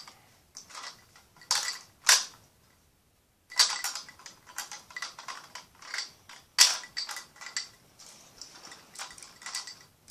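Hard plastic toy parts clicking and clattering as a toy logging truck and its logs are handled and moved, in irregular knocks with a brief pause near the middle.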